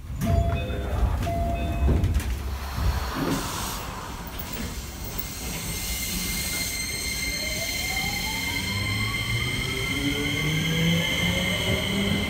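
A door chime sounds twice near the start, with a few knocks. Then a Keio 8000-series train with a Hitachi hybrid-SiC VVVF inverter pulls away: a high steady inverter whine, with tones rising in pitch as it accelerates.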